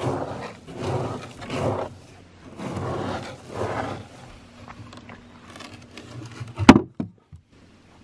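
A hand scooping and raking through pig feed pellets in a wooden bin, with rustling that comes in four bursts, then softer scraping. A single sharp knock comes near the end.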